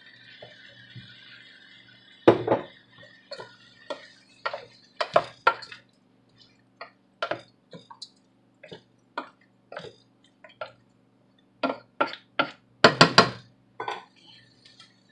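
Kitchen clatter: utensils knocking and clinking against a cooking pot and bowls as a series of scattered sharp clicks. There is a louder cluster about two seconds in and another near the end.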